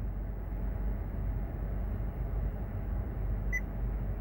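Steady low rumble of a car cabin, with one short, high electronic beep from the Honda Civic's infotainment head unit about three and a half seconds in as its home button is held down.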